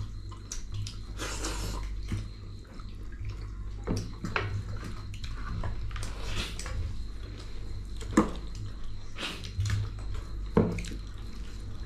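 Close-miked eating sounds: chewing with wet lip smacks and mouth clicks every couple of seconds, over a steady low hum.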